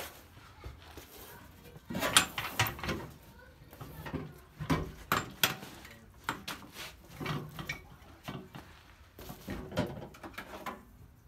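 Rusty steel fuel tank of a Volvo 240 being jiggled out from under the car, giving irregular metal clanks and scrapes as it knocks against the body and the floor jack. The loudest knock comes about two seconds in.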